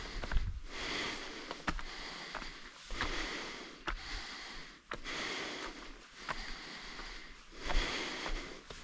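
A hiker breathing hard, in and out in a steady rhythm, close to the microphone, with occasional sharp clicks.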